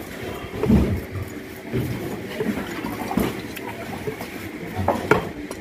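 A heavy knife chopping a barracuda on a wooden log block: several dull thuds at uneven intervals, the heaviest about a second in, with lighter knocks near the end.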